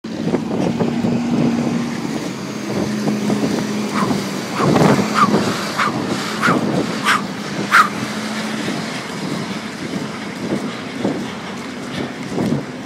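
Motor vehicle moving slowly, its engine giving a steady low hum under rough wind and movement noise on the microphone. A handful of short sharp higher sounds come between about four and eight seconds in.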